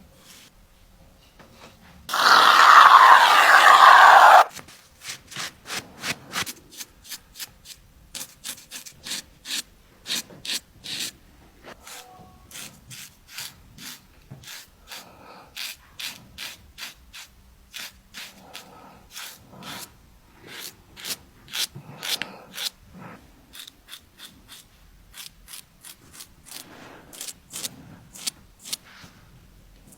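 A razor scraping over facial skin and stubble in quick short strokes, about two or three a second. Near the start there is a loud steady hiss lasting about two seconds.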